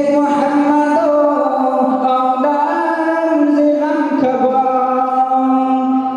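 A young man singing a noha, a Shia Muharram lament, unaccompanied into a microphone, holding long drawn-out notes that step up and back down in pitch.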